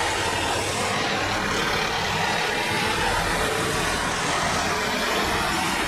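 PKP Intercity SU42 diesel locomotive running as it rolls slowly past at close range: a steady, loud engine sound.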